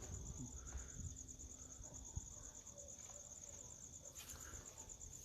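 Crickets chirping in a steady, rapidly pulsing high trill, with one faint knock about two seconds in.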